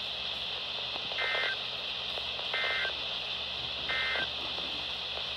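Three short bursts of EAS/SAME digital data from NOAA Weather Radio, a two-tone modem screech repeated about a second and a half apart. This is the end-of-message code that closes the Required Weekly Test, heard over steady radio hiss.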